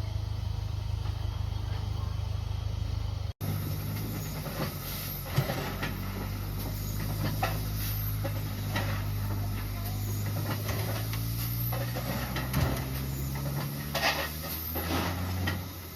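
Low, steady hum of a running vehicle engine with scattered clicks and knocks; the engine's pitch slowly drops in the second half.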